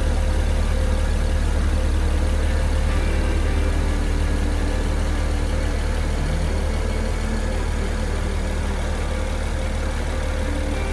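BMW E60 535i's N54 twin-turbo straight-six idling steadily with its hood open, after a valve cover gasket replacement.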